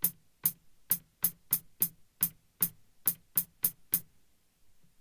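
Alesis SR-16 drum machine's 'small hat' hi-hat sample, triggered about a dozen times in a loose, uneven rhythm. Each hit is short and crisp, and the strikes stop about four seconds in.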